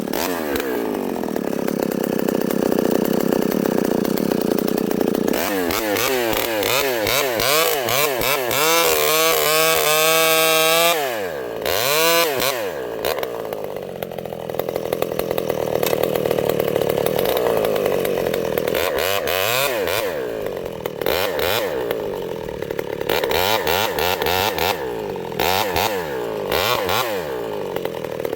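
Vintage Pioneer two-stroke chainsaw running hard in a felling cut, its engine pitch swinging up and down again and again as the throttle is worked and the chain loads in the wood, with a short dip about eleven seconds in.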